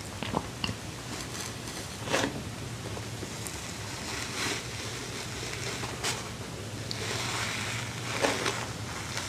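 Close-miked eating sounds: scattered soft bites, mouth clicks and rustling as someone eats soft cloud bread, over a faint steady low hum.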